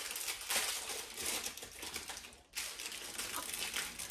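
Crinkling of a packaged cookie's wrapper being handled and opened, a run of small crackles with a brief pause about two and a half seconds in.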